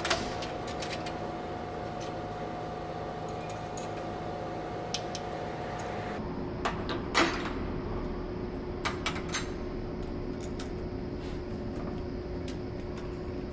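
A ratchet and socket on the camshaft cap bolts of a Honda B18C1 cylinder head, heard as a few scattered metallic clicks and clinks, mostly in the second half, over a steady background hum.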